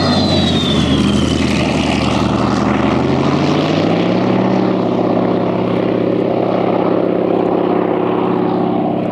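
Bristol Centaurus 18-cylinder sleeve-valve radial engine of a Hawker Sea Fury running at high power on a low, fast pass. Its pitch falls as it goes by, then rises and holds steady as the aircraft pulls up into a climb, and the sound cuts off suddenly at the end.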